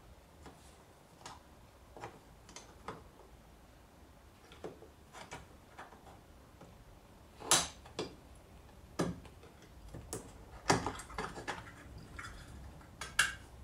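Irregular clicks and light knocks of a tool working the plastic interior trim of an Opel Vectra B door, prying a light out of the door panel. A few sharper knocks come in the second half.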